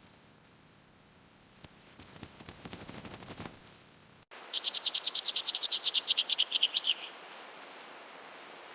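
Animal calls: a steady, high, insect-like drone with faint clicking that cuts off suddenly, then a rapid, high trill of about ten notes a second lasting two and a half seconds, dropping slightly in pitch at the end.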